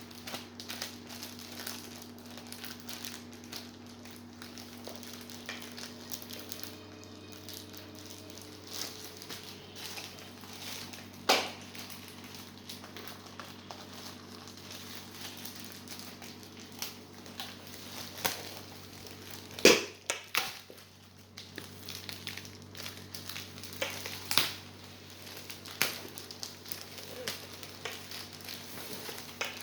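Packaging bag crinkling and rustling as it is handled and worked open, with scattered small clicks and a few sharp snaps, the loudest about 11 and 20 seconds in, over a steady low hum.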